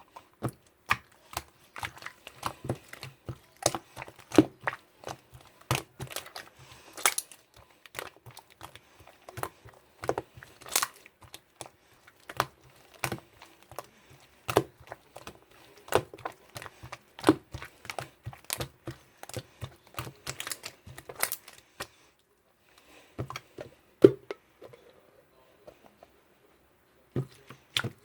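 Irregular clicks and taps at a few per second, stopping briefly twice near the end.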